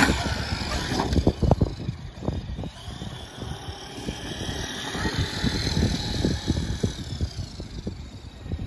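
Electric brushless motor of a Traxxas X-Maxx RC monster truck whining as it is driven, the pitch rising and falling with the throttle. Low knocks and rumble are loudest in the first couple of seconds as it comes off a dirt ramp.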